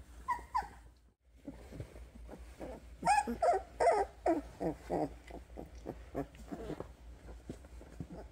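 Very young Doberman puppies whimpering and squeaking: two short squeaks near the start, then a run of louder high cries, several falling in pitch, from about three to five seconds in, over faint shuffling and scratching on the bedding.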